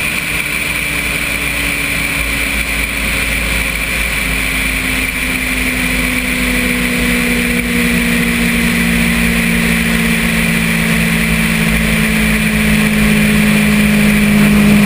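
Suzuki GSX-R1000 L2's inline-four engine running at motorway speed, a steady engine note under wind rush on the camera, the whole growing steadily louder.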